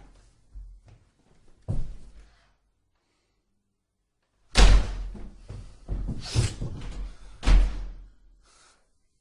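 A door slamming and banging. There is one bang about two seconds in, then a pause, then a loud slam about four and a half seconds in, followed by several more heavy bangs, the loudest about seven and a half seconds in.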